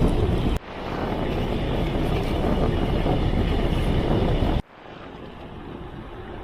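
Wind rushing and buffeting on the microphone while riding a bicycle, in clips cut together: the noise drops abruptly about half a second in and again near the end.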